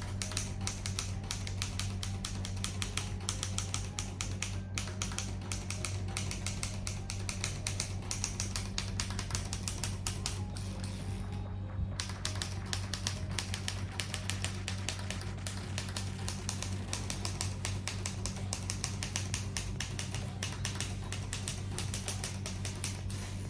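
Manual portable typewriter being typed on: a fast, continuous run of key strikes with a short pause about halfway through, over a steady low hum.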